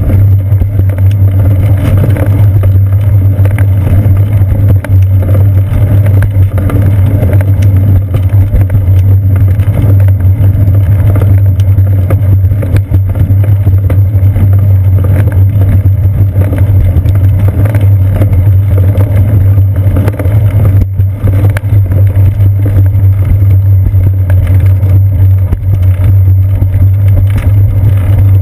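Loud, steady low rumble of a bicycle rolling over concrete, with wind, picked up as vibration through a seat-post-mounted GoPro Hero 2.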